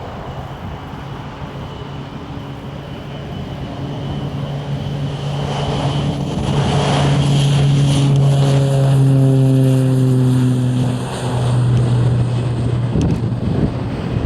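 Beech King Air B200's twin PT6A turboprops passing close at full power with a low propeller drone and a high turbine whine. It grows louder to a peak about two-thirds of the way through, where the pitch drops as it goes by.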